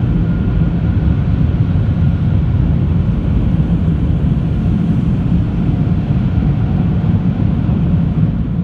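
Tunnel car wash drying blowers, a loud steady rush of air heard from inside the car as it leaves the wash.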